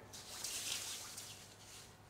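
Soft rustle of the paper manual being handled, fading out after about a second and a half.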